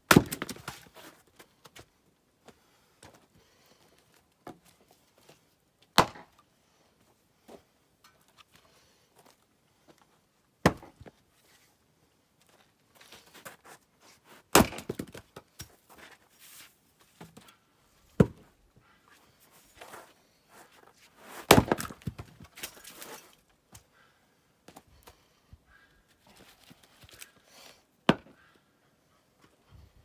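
Long-handled splitting axe striking firewood rounds: seven sharp, loud blows spaced several seconds apart. Between the blows come quieter knocks and shuffling as split pieces are handled and set up.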